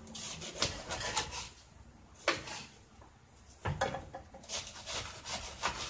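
A knife cutting through a head of cabbage on a wooden cutting board: a series of short cuts and knocks at irregular intervals, as the cabbage is roughly chopped.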